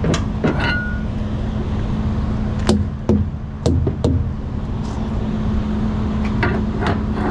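Semi truck engine idling steadily behind a handful of sharp, short knocks, about three seconds and again about six and a half seconds in.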